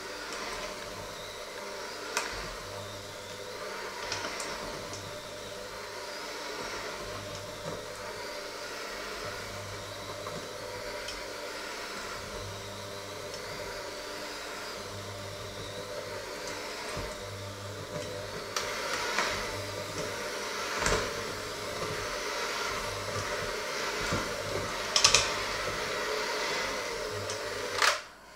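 Electric hand mixer running steadily with its beaters in a stainless steel bowl, clicking and clattering against the bowl now and then, more often in the second half. The motor cuts off just before the end.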